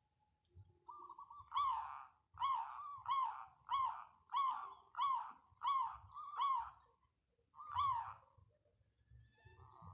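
Zebra dove (perkutut) calling: a short rolling note about a second in, then a run of about ten clear coos at roughly two per second, the last one after a short gap near the end.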